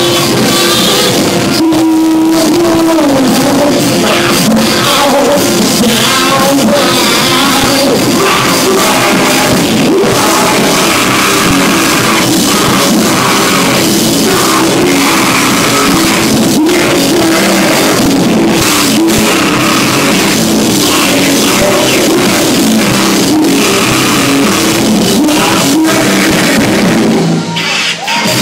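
Loud live rock band playing: distorted electric guitars, drum kit and singing. The sound briefly dips near the end.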